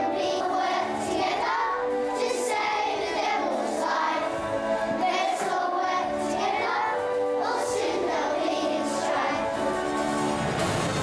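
A group of young children singing a song together in unison over musical backing.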